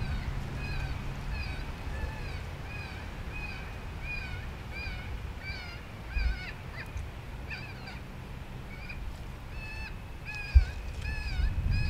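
Cottontail rabbit distress sound from a FoxPro Shockwave electronic predator caller: short high squealing cries repeating about twice a second, used to lure coyotes. Two brief low thumps come about six and ten and a half seconds in.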